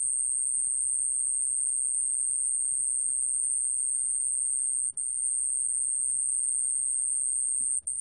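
Male 좀방울벌레 (a small Korean bell cricket) singing at 29 °C: one continuous, high, steady trill, broken by two very brief pauses, one about five seconds in and one near the end.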